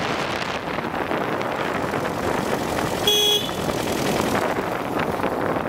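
Lombardini 325 cc diesel-engined Royal Enfield running on the road, with wind rush on the microphone. About three seconds in comes one short horn beep.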